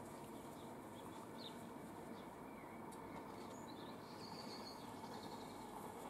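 Faint songbirds chirping: a short chirp about a second and a half in, then a longer warbling phrase around four to five seconds in, over faint steady background noise.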